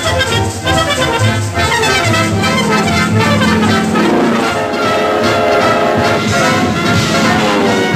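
Orchestral film score led by brass, trumpets and trombones, with no singing. It opens with short, bouncy repeated notes, then settles into held notes and sustained chords from about halfway through.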